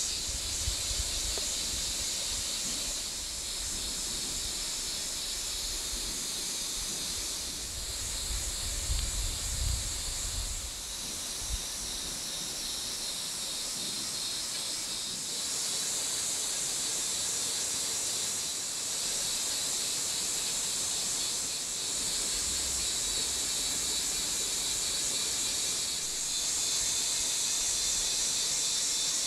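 Steady high-pitched outdoor insect chorus with a fast, fine pulsing, with a low rumble now and then.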